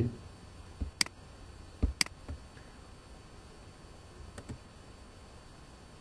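Computer mouse clicks: two sharp clicks about a second apart, each just after a soft low thump, then two faint clicks in quick succession a couple of seconds later, over quiet room tone.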